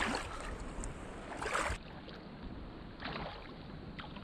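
Shallow rock-pool seawater sloshing and splashing in a few soft swishes, over a steady hiss.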